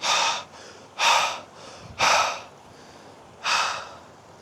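A man breathing hard, with four heavy, gasping breaths about a second apart, out of breath from the effort of struggling through deep bog.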